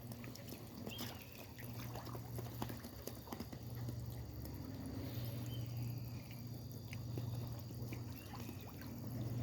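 Water draining out of a duck pond, trickling and dripping with scattered small splashes, over a steady low hum.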